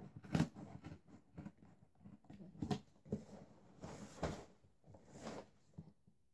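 Scissors slitting packing tape on a cardboard box, with the cardboard flaps scraping and rustling in a few short bursts.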